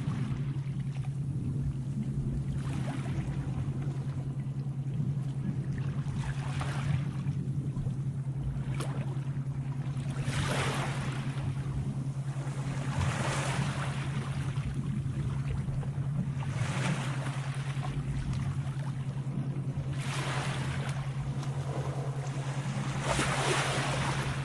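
Sea waves washing in one after another, each swell rising and falling about every three to four seconds, over a steady low hum.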